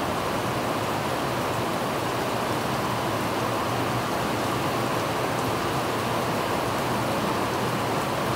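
Heavy rain pouring steadily on trees and waterlogged ground, a constant even hiss.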